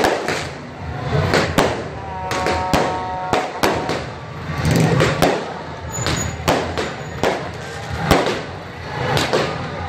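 Firecrackers going off in a rapid, irregular string of sharp bangs over street noise.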